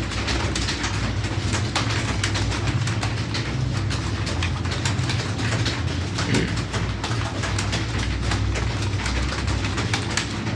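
Many computer keyboards clattering at once as several typists type in a timed test: a dense, irregular stream of key clicks over a steady low hum.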